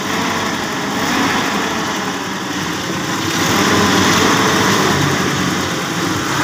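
Carbureted car gasoline engine with contact-point ignition idling steadily, just tuned up after long storage with new spark plugs, points and condenser and a cleaned, overhauled carburetor.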